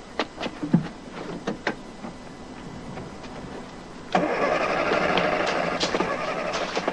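A few light clicks and knocks, then about four seconds in a small car engine, the Mini Moke's four-cylinder, suddenly starts and keeps running steadily.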